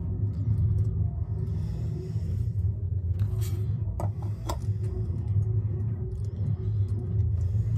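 Steady low background hum, with a few light clicks and taps between about three and four and a half seconds in as a metal degree wheel and its hardware are handled.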